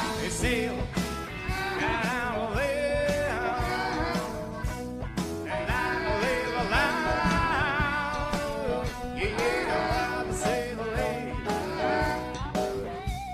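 Band playing rock music, with a voice singing long wavering notes over a steady drum beat of about two strokes a second.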